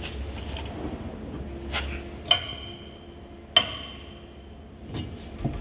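Metal parts clinking while brake parts are handled: two sharp clinks about a second and a half apart, each ringing briefly, among a few quieter knocks.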